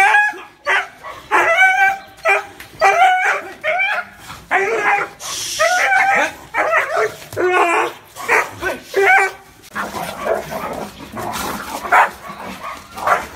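Dog barking in a rapid series, about two barks a second. In the last few seconds the barks turn rougher and less distinct.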